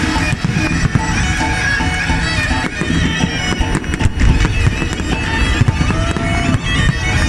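Fireworks bursting and crackling with deep thuds, over loud music led by a reedy wind-instrument melody.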